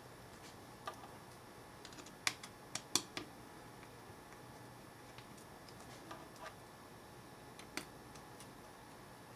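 Small, scattered clicks of a small Phillips screwdriver working the tiny screws on an iPhone 3GS's logic board, with a quick run of several clicks about two to three seconds in.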